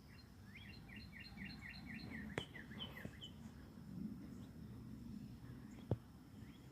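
A songbird singing a quick run of about a dozen repeated chirps in the first half, then a few scattered calls, over a steady high-pitched whine and faint low background rumble, with two sharp clicks.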